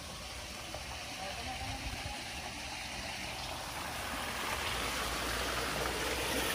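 Running water splashing over rocks, getting steadily louder.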